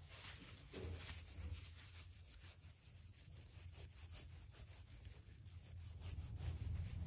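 Faint rustling as a hand rubs and strokes a cockatoo's feathers, in short repeated strokes over a steady low hum.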